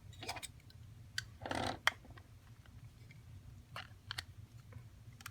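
Scattered sharp clicks and taps of small plastic phone parts being handled and fitted by hand, with a brief rustle about a second and a half in.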